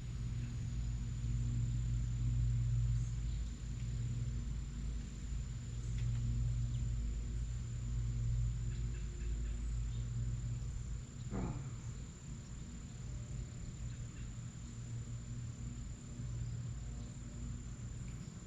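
Insects trilling as one steady, unbroken high tone over a low rumble that swells and fades every couple of seconds; a single short falling sound comes about eleven seconds in.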